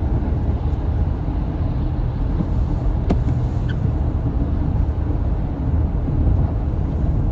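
Steady low road-and-engine rumble heard from inside a car driving on a wet highway in falling snow, with one short sharp click about three seconds in.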